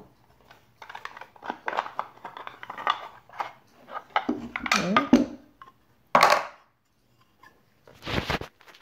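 Purpleheart wooden dice tower pieces being handled and taken apart: a run of short wood-on-wood scrapes and knocks, then a sharp clack about six seconds in and another near the end as pieces are set down.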